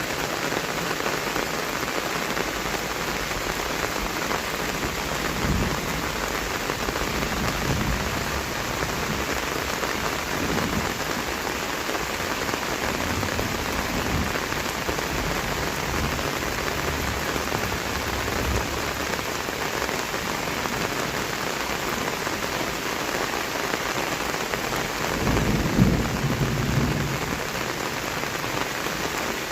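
Heavy rain falling steadily in a continuous hiss during a thunderstorm. Low rumbles of thunder come through several times, the longest and loudest near the end.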